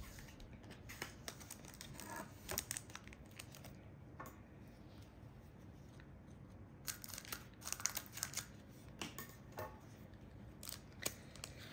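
Foil Pokémon booster pack crinkling and rustling in the hands as it is readied to be opened, with scattered light clicks and snips.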